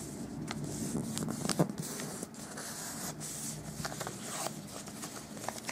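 Glossy origami paper (papel charol) rustling and scraping under the fingers as a fold is made and the crease pressed down, with scattered small crackles.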